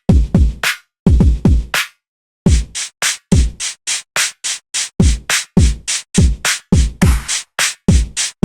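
Drum pattern played by the VISCO drum-resynthesis plugin: deep kicks that drop in pitch, with snappy higher hits in a steady beat. It stops briefly about two seconds in, then starts again.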